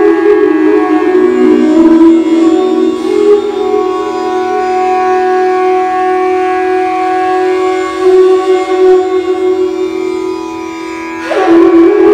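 Bansuri (Indian bamboo flute) improvising on long held low notes that ring and blend in the reverberation of an empty stone water tank. A fresh breathy note is attacked strongly about a second before the end, after a quieter stretch.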